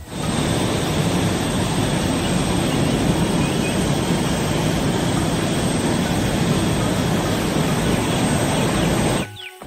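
Loud, steady engine noise like heavy machinery running, with no music over it. It starts abruptly and cuts off suddenly shortly before the end.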